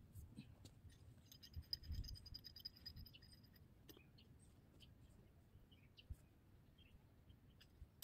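Near silence outdoors. Faint scattered clicks and scrapes, and a faint high, rapid trill from about one second in that lasts about two seconds.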